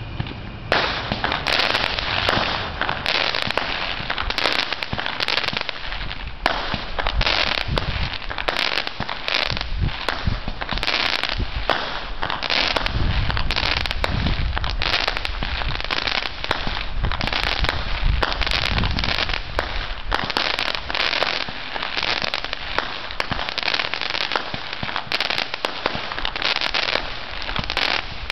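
Aerial fireworks going off in quick succession: a dense, unbroken run of bangs and pops as shells burst overhead.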